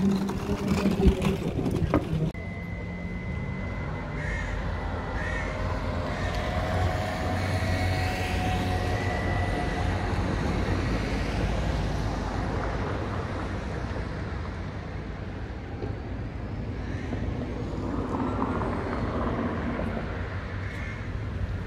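Outdoor city ambience: a steady low rumble of road traffic under a noisy street background. A few sharp knocks sound in the first two seconds, and a thin, high, steady whine runs from about two seconds in until about nine seconds in.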